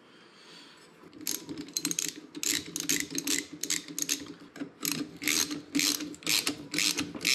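Socket ratchet clicking in quick repeated strokes, about two a second, starting about a second in, as it drives the screw that holds the new attic fan motor in its mounting bracket.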